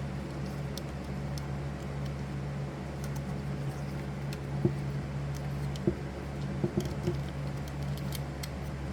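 Small metal parts of an electromechanical pinball score reel clicking lightly as they are fitted back together, a handful of clicks in the second half, over a steady low hum.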